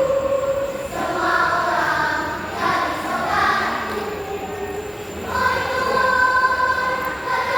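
Children's choir of second-graders singing a song in phrases, ending on a long held note.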